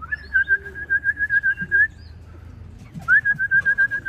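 A person whistling to call racing pigeons in to the loft trap: two long warbling whistles held on one pitch, each sliding up at the start, the second beginning about three seconds in.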